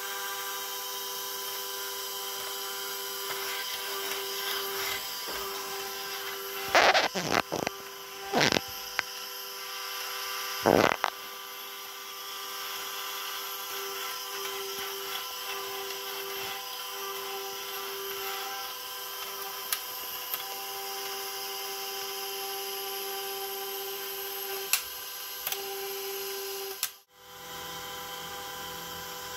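Sfena artificial horizon's gyro running on a 115 V 400 Hz supply: a steady electric hum and whine with a strong 400 Hz tone and several higher tones, the 400 Hz tone swelling and fading. A few loud sharp knocks about seven to eleven seconds in, and a couple of lighter clicks later, as the gimbal mechanism is handled.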